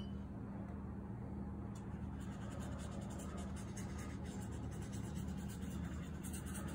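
Soft scratchy strokes of a small paintbrush dabbing watercolor onto paper, over a steady low hum. A light click sounds right at the start.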